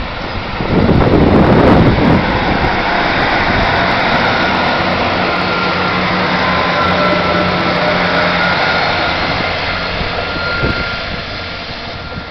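Class 158 diesel multiple unit accelerating away from a station past the microphone, its underfloor diesel engines running under power with a steady drone and whine. Loudest as the leading car passes about a second in, then fading as the train draws away near the end.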